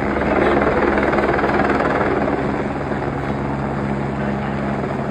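Helicopter flying overhead: a steady rotor beat over its engine tone, a little louder in the first two seconds, then easing slightly.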